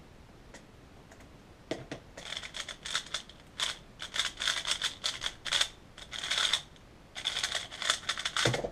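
3x3 speed cube turned rapidly during a timed solve: quick bursts of plastic clicking and clacking layer turns, starting about two seconds in after a quiet pause. A low thump comes near the end as the solve stops.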